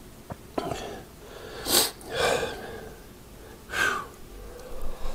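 A man breathing heavily: about four short, noisy breaths in and out, the loudest a sharp exhale about two seconds in.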